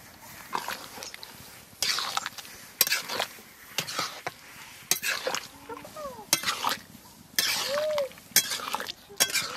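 A spatula scraping and clinking against the inside of a kadai as a thick curry is stirred, in strokes about once a second, one of them a longer drawn-out scrape.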